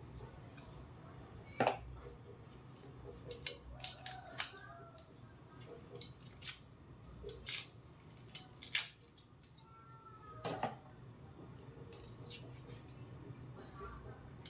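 Small paring knife clicking and scraping against a garlic clove as it is peeled by hand: irregular sharp ticks every second or so, several louder snaps among them.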